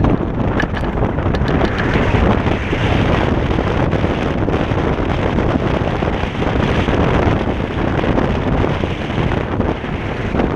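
Wind buffeting the microphone of a side-mounted GoPro Hero 3+ on a moving Kaabo Wolf King GT electric scooter: a loud, steady rush with a few light clicks.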